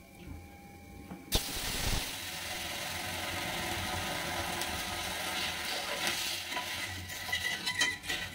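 Water poured into a hot metal kadai of mung dal fried in oil: a sudden loud hiss and sizzle about a second in that holds steadily for several seconds. Near the end a spatula stirs and scrapes the dal in the pan with uneven clicks.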